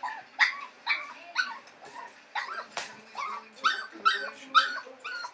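Young puppy yipping over and over, about two short, high-pitched yaps a second, as it stands against the side of its wire pen trying to get out.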